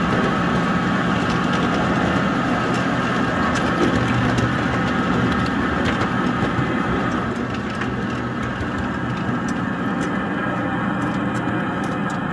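Small ride-on scale locomotive running along its track: a steady engine hum, with scattered clicks and rattles from the wheels on the rails.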